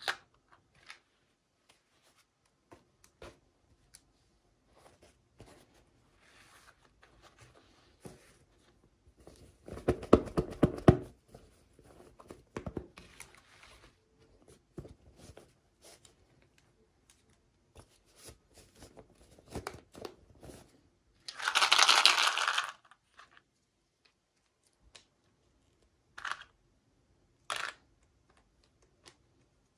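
Toy packaging being opened by hand: scattered small clicks and rustles, with wrapping torn and crinkled loudly about ten seconds in and again about twenty-two seconds in.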